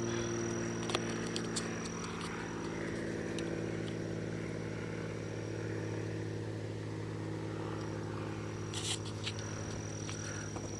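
A motor running steadily: an even low hum, with a few faint clicks in the first couple of seconds.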